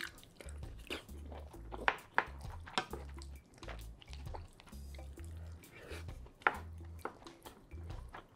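Close-up eating sounds of curry rice: chewing and mouth sounds, and a wooden spoon scraping and knocking against a large metal pan in sharp clicks, loudest about two seconds in and again past six seconds. Quiet background music with a repeating low bass line runs underneath.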